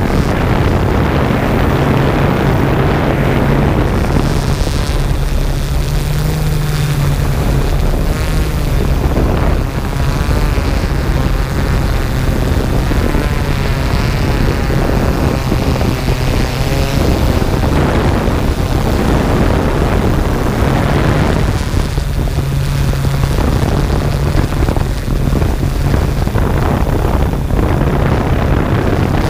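Yuneec Typhoon G quadcopter's electric motors and propellers, heard from the camera on board: a loud, steady hum over rushing air noise, its pitch shifting slightly as the drone hovers and turns.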